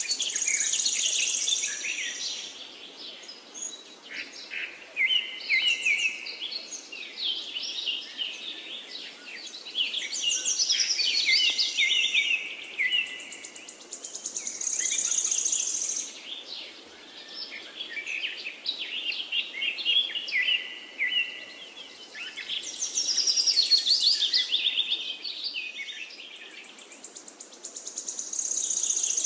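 Birds chirping and singing in repeated phrases, with a high, buzzy trill that comes back every several seconds, over a faint steady hiss.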